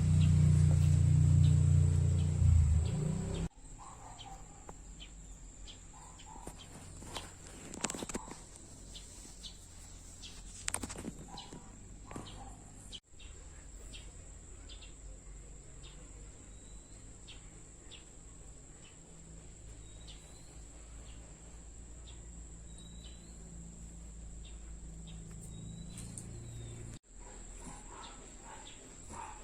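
Outdoor ambience: a steady high-pitched insect drone with scattered short bird chirps. A loud low rumble fills the first few seconds and stops abruptly.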